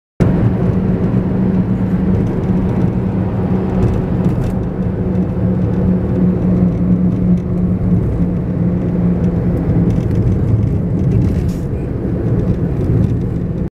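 Steady road noise of a moving car heard from inside the cabin: a low engine and tyre hum with a steady drone.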